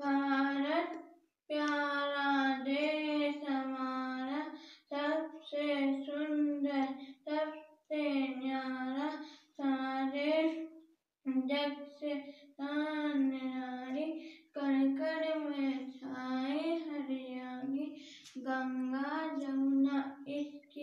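A child singing solo without accompaniment, in sustained phrases of one to three seconds with brief pauses for breath between them.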